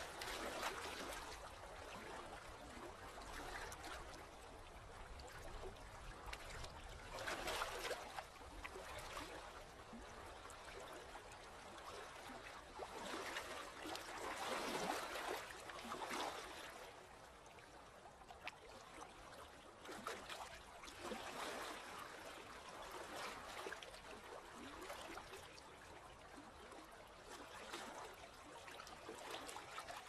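Calm sea water lapping gently, a soft splashing wash that swells and fades several times.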